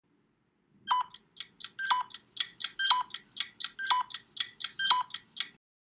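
Electronic countdown sound effect: quick bright ticks about four a second, with a stronger beep on each second, five in all, then it stops shortly before the end. It is the thinking-time timer between a quiz question and its answer.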